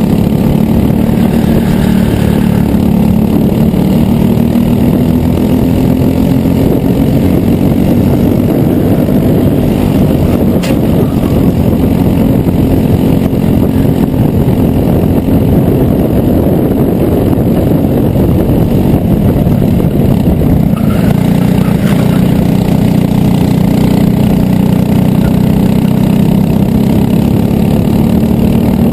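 Racing kart engine at race pace, recorded onboard, running loud and continuously. Its pitch climbs slowly as the kart gains speed, drops briefly about twenty seconds in as it slows for a corner, then climbs again.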